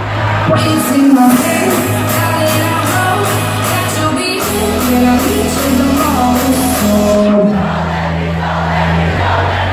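Loud electronic dance music over a club sound system, with held bass notes under a sung vocal line and a fast hi-hat beat that drops out about seven seconds in, leaving the bass and voice. Crowd shouts under the music.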